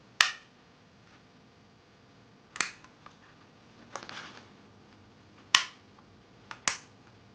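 About six sharp plastic clicks, spaced a second or more apart with the last two close together, as the fold-out feet on the underside of an Amazon Basics Pro 65% wireless mechanical keyboard are flipped open and shut.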